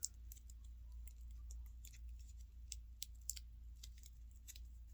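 Faint, irregular small clicks and ticks of tiny plastic figure parts and packaging being handled, over a steady low hum.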